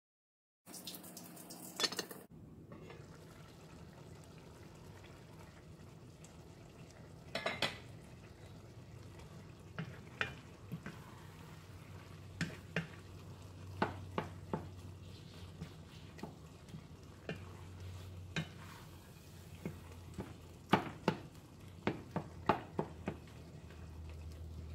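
Wooden spoon stirring a thick ground-beef picadillo in a skillet over a low sizzle, with scattered sharp knocks of the spoon against the pan.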